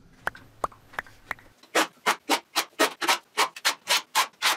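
Bar clamps being tightened on a glue-up: a few light clicks, then an even, rapid run of short strokes, about four a second, as a clamp is worked down tight.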